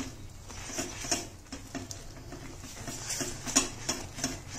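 A spatula stirring and scraping thick, bubbling jaggery syrup in a wok-shaped pan, making irregular soft knocks and sticky scrapes. The jaggery is being cooked down for sesame brittle and has not yet reached its setting stage.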